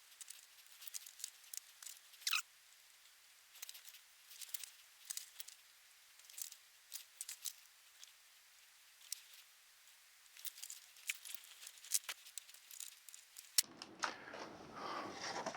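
Scattered light clicks and ticks of small parts and tools being handled on a workbench, with a short falling squeak about two seconds in. Near the end a louder, fuller rustling starts.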